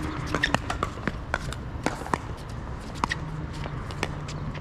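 Pickleball paddles striking a plastic ball, heard as a string of sharp, irregular pops over a low steady hum.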